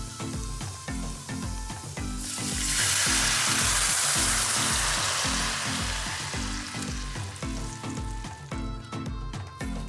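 Food frying in a hot pan: a loud sizzle that swells up suddenly about two seconds in and slowly dies down over the next few seconds, over background music with a steady beat.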